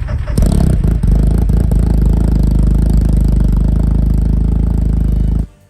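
Race vehicle engine running loud and steady, with a few knocks and rattles over it; it cuts off abruptly near the end.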